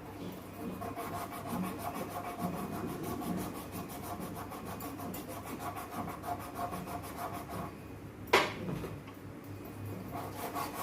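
Steady, fine rubbing or scraping that repeats evenly, with one sharp knock about eight seconds in.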